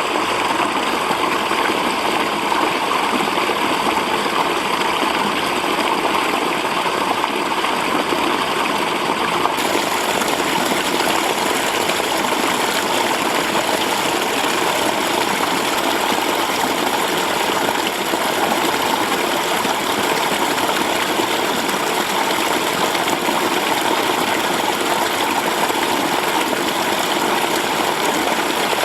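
Mountain stream water running steadily over rocks. The rushing turns a little brighter and hissier about ten seconds in.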